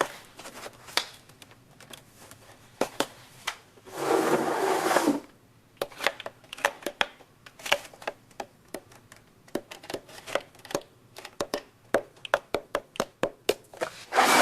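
RV keyless door lock hardware being handled and fitted by hand: a run of irregular small clicks and taps, with a short scraping rush about four seconds in.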